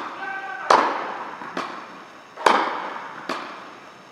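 Tennis rally on an indoor hard court: racket strikes and ball bounces, each a sharp pop with an echoing tail in the hall. Loud strikes come about two seconds apart, with a softer impact between each pair.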